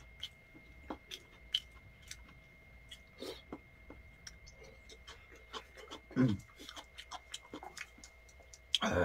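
Quiet eating sounds: chopsticks clicking and tapping against a plastic container and food, with chewing, and a louder noise right at the end. A faint steady high tone sits underneath.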